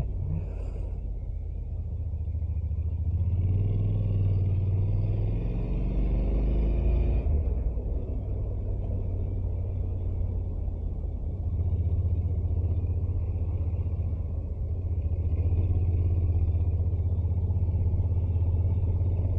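Honda NC750X motorcycle's parallel-twin engine running under way, a steady low rumble; its pitch rises from about three seconds in and drops back at about seven seconds, then it settles into a steady rumble again.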